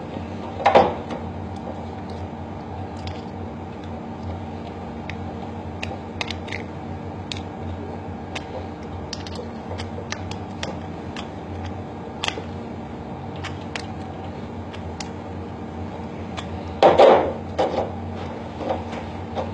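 Handling of a small pneumatic valve and its nylon air tubing and push-in fittings as they are assembled: scattered light clicks and taps of plastic and metal. Two louder knocks come, one about a second in and one near the end, over a steady background hum.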